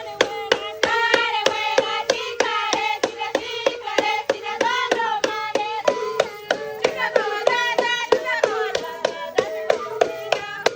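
Music: a wavering melody over a steady held drone, with a sharp percussive beat about three times a second.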